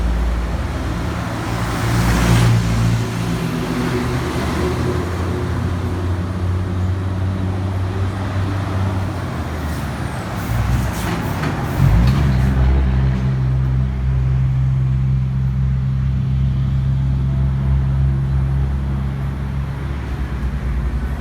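A vehicle engine running steadily, with short bursts of hiss about two seconds in and again around ten to twelve seconds. The engine note shifts about twelve seconds in.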